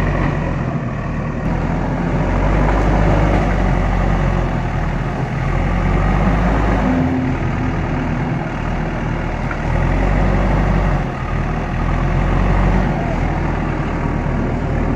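JCB 3DX backhoe loader's diesel engine running while the machine works, its note rising and falling every few seconds as the load changes.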